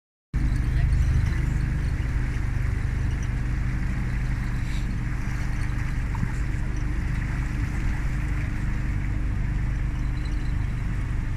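A pontoon boat's motor running steadily while under way, a low hum with a steady hiss of water and wind over it.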